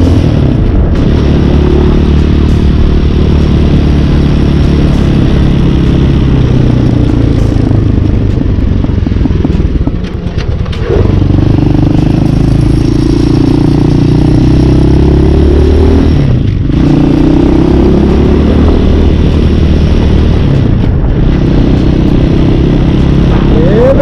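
Hawk 250 street-legal dirt bike's single-cylinder four-stroke engine running under way, its note rising and falling with the throttle. The engine note dips briefly about ten seconds in and again about six seconds later, as the throttle is rolled off and picked up again.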